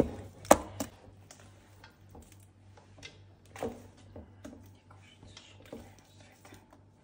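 Hands kneading wet, sticky bread dough in a metal bowl: faint squelches and scattered small clicks, with a sharp click about half a second in.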